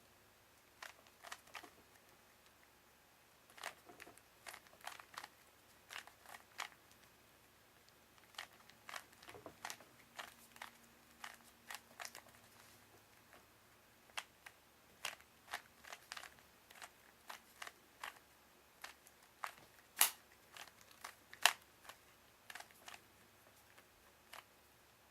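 Rubik's Cube being solved by hand: the plastic layers click and clatter as they are turned, in quick irregular runs with short pauses, and two sharper clacks a little after twenty seconds.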